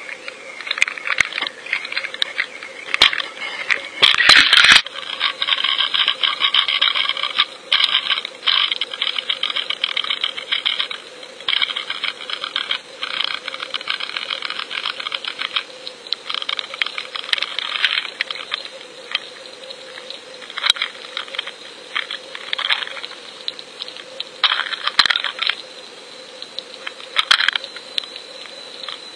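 Underwater clicking, crackling and rattling picked up by a fishing camera in its waterproof housing, with a faint steady hum underneath. The clicks come in uneven clusters, loudest about four seconds in.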